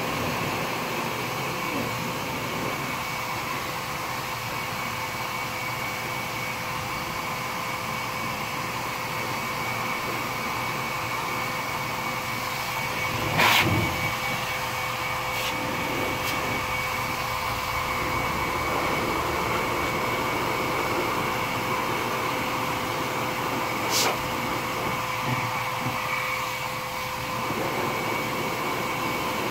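Pet grooming blower (forced-air dryer) running steadily with a constant motor whine, its air nozzle blowing out an Angora rabbit's wool. There is a sharp knock about halfway through and another later on.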